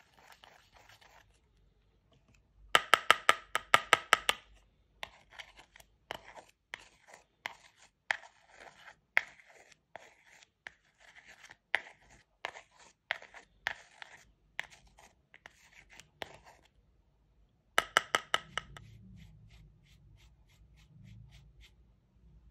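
Plastic tool scraping and crushing pressed eyeshadow in the wells of a plastic palette: many short, dry scrapes. Two bursts of quick, sharp clicks stand out, one about three seconds in and one near the end.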